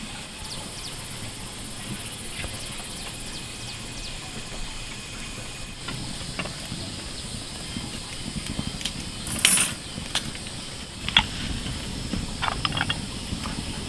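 Wood fire crackling in a clay hearth, with a short metal clatter about nine and a half seconds in as a wire grill basket is set over the flames, then a few sharp clicks near the end.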